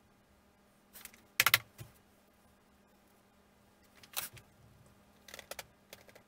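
Light wooden clicks and taps as a built-up wooden model-aircraft wing frame is handled and set down on the workbench, in a few short clusters with the loudest about one and a half seconds in.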